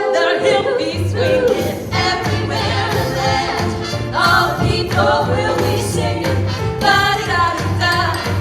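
Music: several voices singing in harmony over an instrumental backing with a steady, pulsing bass beat.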